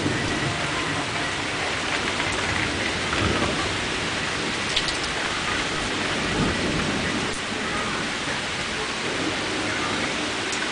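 Rain falling steadily in a thunderstorm, with low rumbles of thunder swelling now and then under the hiss of the rain.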